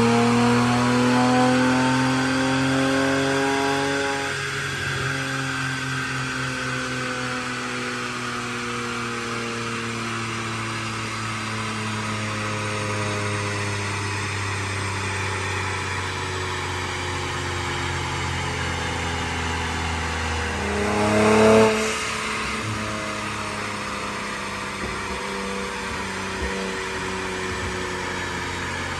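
Infiniti Q50 Red Sport's twin-turbo 3.0-litre V6 (VR30DDTT) running on a dyno through resonated 3-inch downpipes and catback exhaust: it pulls with slowly rising pitch for about four seconds, then drops off to a quieter steady drone. About twenty-one seconds in, a short sharp rev rises and falls before the steady drone resumes.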